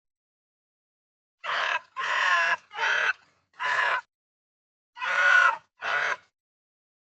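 Pig squealing: six short squeals in quick succession, starting about a second and a half in, each lasting under a second.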